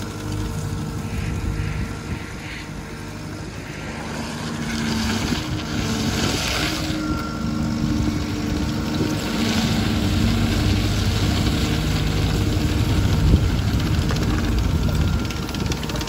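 2017 ASV RT-120 Forestry compact track loader's diesel engine idling steadily, growing louder about four seconds in.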